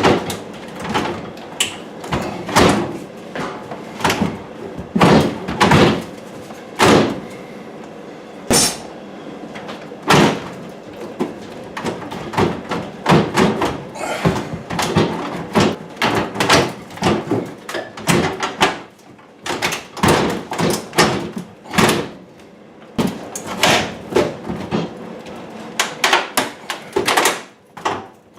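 Wooden kitchen cabinets being pried loose and taken down: a long run of irregular knocks, bangs and scraping, with a few sharper thuds.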